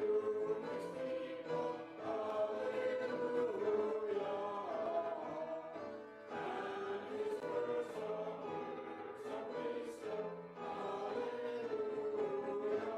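A choir singing a hymn in phrases with short breaks between them.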